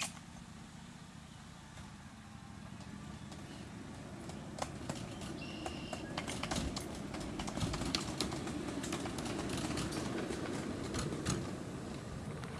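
Freight cars of a 1.5-inch-scale riding railroad rolling slowly along the track: a low rumble that slowly grows, with scattered clicks from the wheels and couplers in the middle. A bird chirps once about five and a half seconds in.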